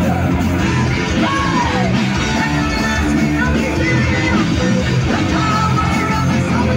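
Live heavy metal band playing: distorted electric guitars, bass guitar and drums under a high, yelled male lead vocal that slides in pitch.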